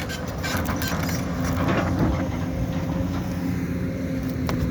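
Excavator's diesel engine running steadily under load, with a few knocks and scrapes near the start as the bucket pushes stone.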